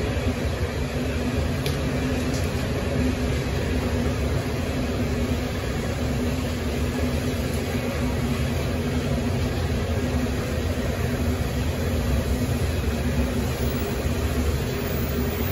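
Loaded coal train rolling past, a steady low rolling noise of its freight car wheels on the rails.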